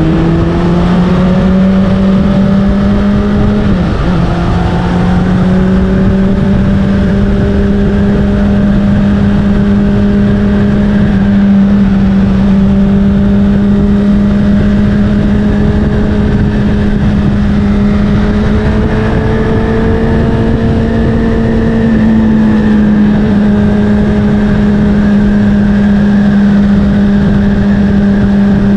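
Honda CBR600RR's inline-four engine, breathing through an Akrapovic exhaust, under way at a steady cruise. Its pitch holds nearly level, with a brief dip about four seconds in and a slight rise that eases off a little after twenty seconds.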